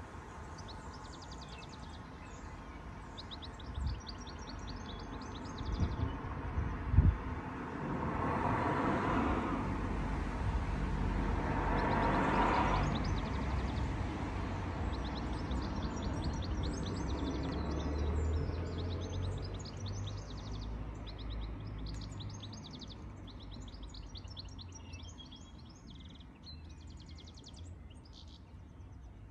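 Small songbirds trilling and chirping, with a vehicle passing along the road: its noise and low rumble build up, peak and fade away over about ten seconds in the middle. A few dull thumps come before it, the sharpest about seven seconds in.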